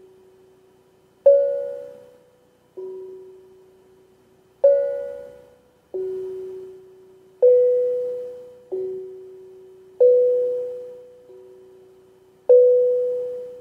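A tuned percussion instrument struck with a mallet, two notes alternating low and high, about nine strikes roughly a second and a half apart, each note ringing and fading before the next.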